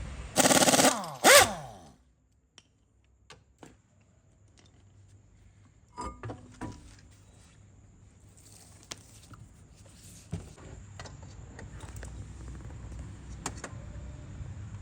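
A loud thud and rattle in the first second and a half, then a Ford Figo moving slowly with a low rumble and scattered sharp knocks from the front suspension. The knocking is typical of a worn strut mount with an integral strut bearing.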